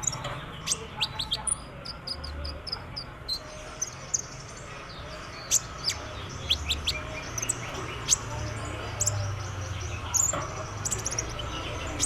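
Brown-throated sunbird (kolibri ninja) singing: quick runs of short, sharp, high-pitched chirps and trills that keep coming in bursts, the rapid 'trotolan' song style.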